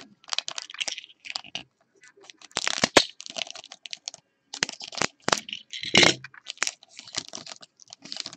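Foil wrapper of a Rookies & Stars trading-card pack being slit, torn open and crinkled, with the stack of cards handled and slid against each other: an irregular run of short crinkles and clicks.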